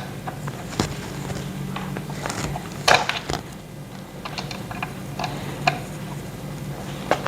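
Scattered clicks and light knocks of an Allen key and metal chair parts as bolts are tightened, the loudest a short cluster about three seconds in, over a steady low hum.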